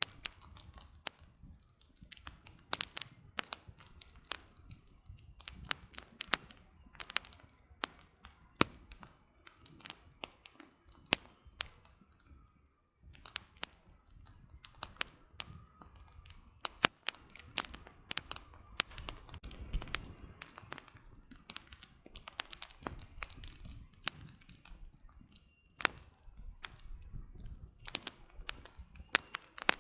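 Campfire crackling: burning firewood giving irregular sharp snaps and pops, some much louder than others, with a short lull about twelve seconds in.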